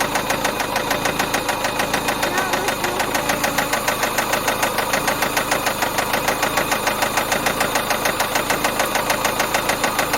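Toyota MR2 engine running with a nasty, steady rod knock, regular knocks over the running engine: a worn connecting-rod bearing with the rod smacking around, still knocking with oil stabilizer added to the oil.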